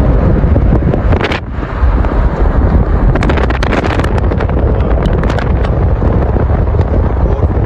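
Wind buffeting the microphone of a moving vehicle over a steady low road and engine rumble, with frequent crackles from the gusts. The wind drops briefly about a second and a half in.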